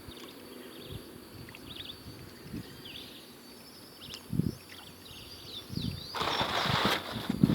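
Small birds chirping, with a few dull low thumps; about six seconds in, a broad rushing noise comes in and covers them.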